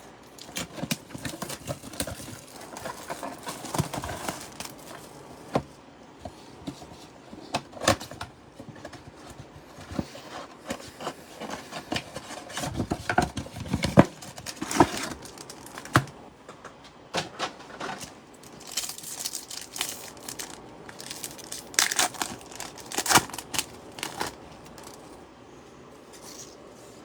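Trading card packs being handled and torn open: plastic wrappers crinkling and tearing, with irregular crackles, taps and clicks as the cards are handled.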